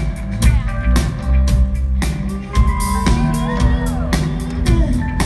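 Live band playing, heard from within the audience: a drum kit beating steadily under electric guitar, bass and keyboard, with sliding guitar notes in the middle.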